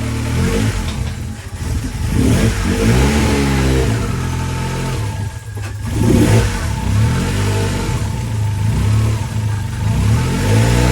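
Ford Sierra Cosworth's turbocharged 2.0-litre four-cylinder engine running while the car is driven forward and back a few times to test the brakes. The engine note rises and falls repeatedly, dropping briefly about five and a half seconds in.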